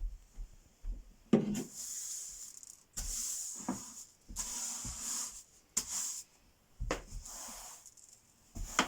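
Broom bristles swept across a floor in about six separate scratchy strokes, with a light knock or two of the broom.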